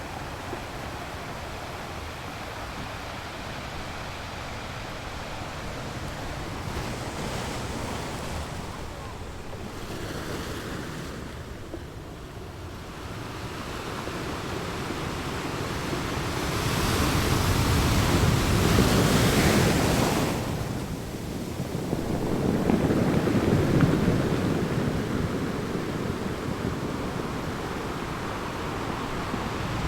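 Sea waves breaking and washing on the shore, swelling to a loud crash about two-thirds of the way through and again a few seconds later, with wind buffeting the microphone.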